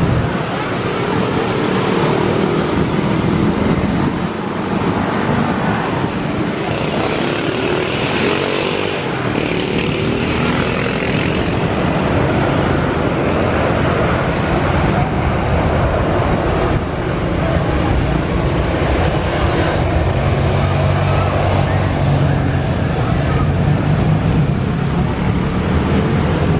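Turbofan jet engines of airliners running at low power as they taxi: a steady rushing noise, with a high whine for a few seconds about a third of the way in.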